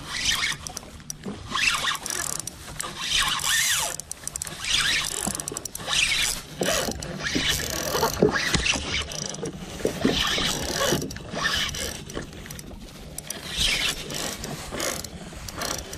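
A spinning reel and fishing line being handled close to the microphone: irregular rustling and mechanical clicking, coming in bursts roughly once a second.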